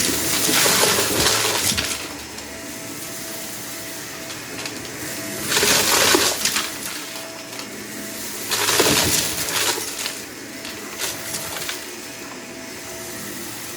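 Vacuum cleaner running, with three loud bursts of hard debris rattling and crackling as it is sucked up.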